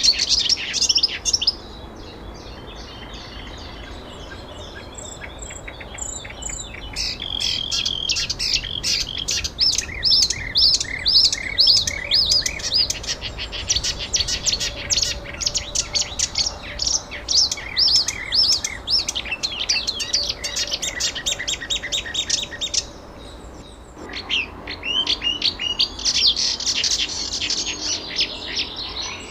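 Birds chirping in quick, dense runs of high notes. The chirping thins out for several seconds near the start and briefly drops away about two-thirds of the way through before picking up again.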